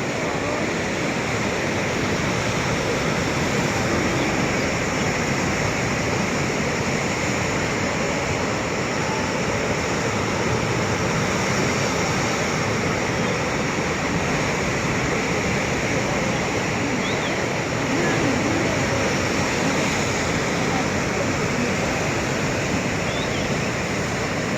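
Sea waves: a steady, continuous rush of surf with no clear pauses between breakers.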